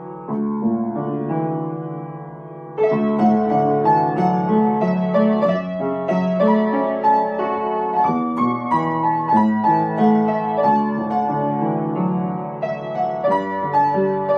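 Solo piano music, a flowing run of notes in a gentle piece; about three seconds in it grows louder and brighter as higher notes join.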